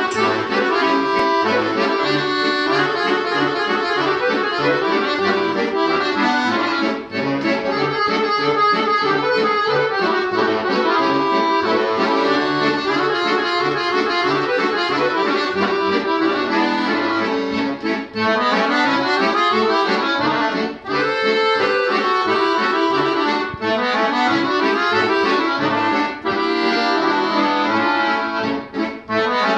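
Two chromatic button accordions, one a Bugari, playing a fast Serbian kolo together: a regular beat of bass notes under quick running melody, with a few brief breaks between phrases.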